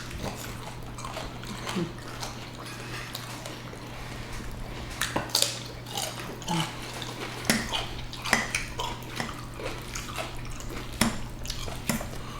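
Close-miked eating sounds: scattered clicks of utensils against dishes, with wet mouth and chewing sounds, over a steady low hum.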